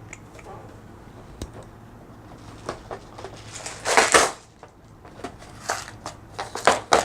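Small clicks and taps of a pin tumbler lock and metal gutting tools being handled, with a longer scrape about four seconds in and a few sharper clicks near the end.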